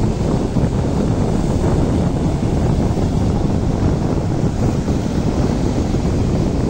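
Sea waves washing onto a beach, a steady surf noise, with wind buffeting the microphone and adding a low rumble.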